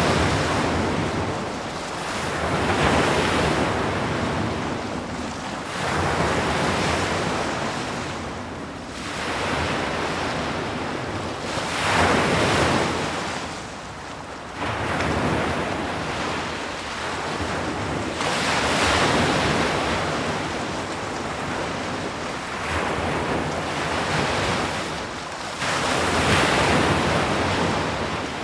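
Sea waves breaking on a shore, the surf swelling and ebbing in repeated surges every few seconds, with a steady wash between them.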